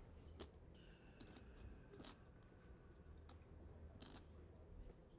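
Near silence: a low room hum with a few faint scattered clicks.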